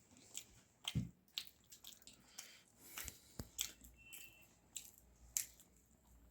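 Faint eating sounds: scattered small clicks, crunches and knocks of biting, chewing and handling food.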